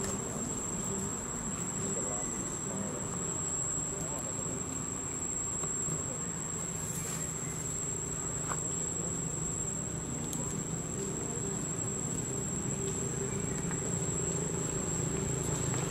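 Insects in the surrounding vegetation giving one continuous high-pitched shrill, over a low, steady background hum.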